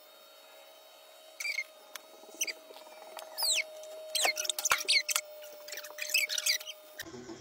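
A run of short, high-pitched squeaks that each fall in pitch, sparse at first and then coming thick and fast, over a faint steady hum; the sound changes abruptly near the end.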